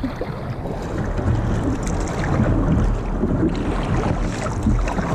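Kayak paddle strokes splashing in the water and water sloshing against the kayak, with wind buffeting the microphone.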